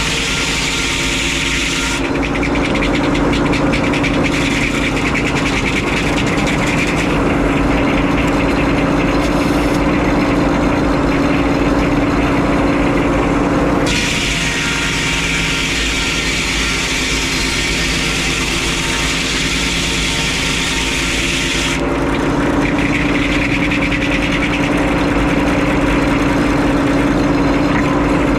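Frick 01-C circular sawmill running, its engine droning steadily. The sound shifts for a long stretch from about two seconds in, then again from about two-thirds of the way through.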